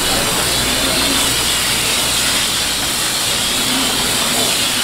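Water spraying from a hose onto a plastic cutting board, rinsing a filleted eel: a steady, loud hiss.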